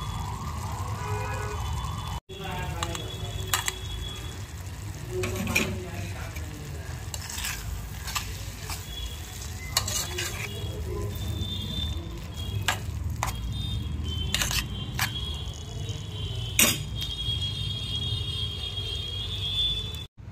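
Metal spoon stirring cooked ridge gourd and onion in an aluminium pot, with irregular clinks of the spoon against the pot over a low steady hum.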